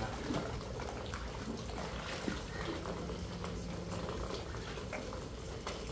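Steady hiss of rain falling on a pool and its screened enclosure, with faint scattered patter and light water splashing from swimmers.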